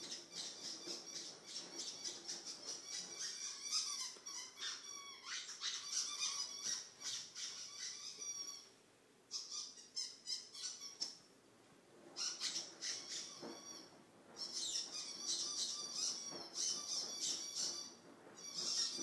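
Dog's squeaky toy squeaking over and over as the puppy plays with it, in long runs of quick high-pitched squeaks broken by a few short pauses.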